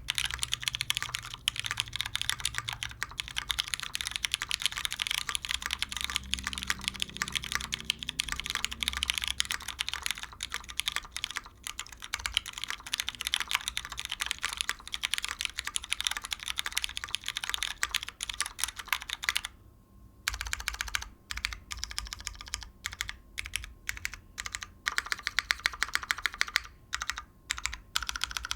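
Typing on a custom Monokei Kei R2 mechanical keyboard with lubed MX Brown tactile switches, GMK keycaps and a gasket-mounted polycarbonate plate. Fast continuous typing stops briefly about two-thirds through, then comes back as slower, separate keystrokes.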